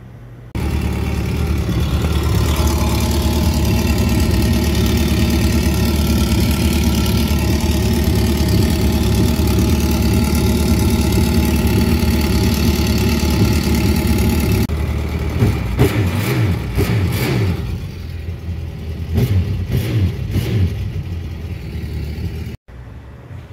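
Honda AquaTrax Turbo jet ski's turbocharged four-stroke engine running out of the water. It runs steadily for the first half, then unevenly with short surges, and cuts off sharply near the end. The engine has a leak in its bay, which the owner traces to cracks in the exhaust manifold.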